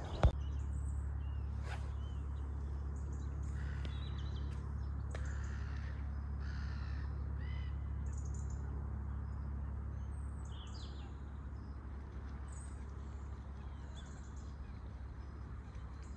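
Wild birds calling, a scattering of short calls over a steady low rumble, with a sharp click just at the start.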